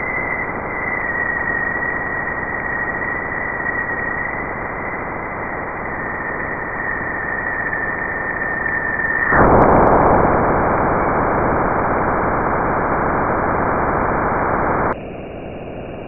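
Sonified space recording presented as the sound of Jupiter: a dense, steady hiss with a thin high whistle held above it. About nine seconds in the whistle stops and the hiss grows louder, then about a second before the end it drops abruptly to a quieter, thinner hiss.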